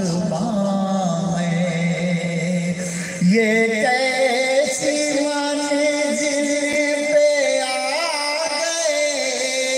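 A man's solo voice singing a naat, an Urdu devotional poem, through a microphone, holding long drawn-out notes with slow ornamented bends. About three seconds in, the melody steps up to a higher pitch.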